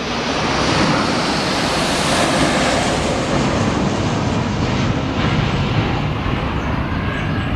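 Military aircraft flying low overhead: a loud, steady engine noise that swells over the first second and then holds.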